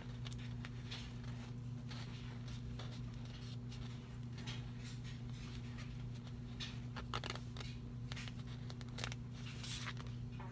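Paper rustling and light clicks as sticker sheets are handled and sorted, coming in short scattered bursts that bunch up near the end, over a steady low hum.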